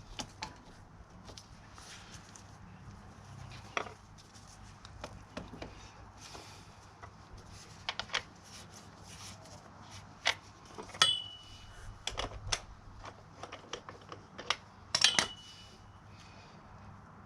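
Metal spanners clinking against the motorcycle's rear-axle chain adjuster bolts as the chain is tensioned: scattered sharp clicks and taps, two louder ones ringing briefly, about 11 and 15 seconds in.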